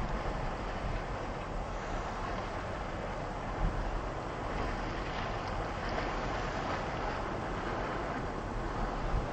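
A small passenger ferry's engine running steadily as it motors past, mixed with water noise and wind buffeting the microphone.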